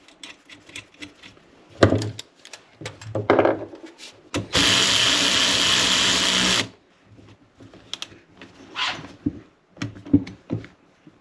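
Power drill running steadily for about two seconds, driving in the screw that holds the wiper arm to the new wiper motor, with scattered clicks and knocks of parts being handled before and after.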